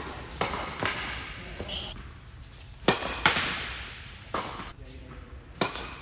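Tennis balls being struck by racquets and bouncing on an indoor hard court: a string of sharp, irregular pops that echo in the hall, the loudest pair a little under halfway through.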